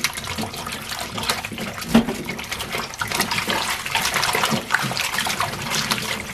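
Water splashing and sloshing in a stainless steel bowl as rubber-gloved hands rub and swish fresh dureup (Japanese angelica tree shoots), with tap water running into the bowl. One stronger splash about two seconds in.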